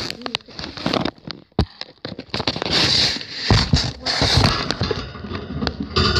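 Irregular crackling and rustling with many sharp clicks: handling noise from a camera being moved along and against the bars of a metal wire hamster cage.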